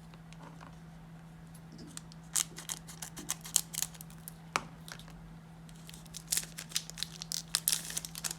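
A trading-card pack's foil wrapper being torn open and crinkled, and the cards handled: sharp crackles and snaps in two clusters, about two seconds in and again near the end, over a faint steady hum.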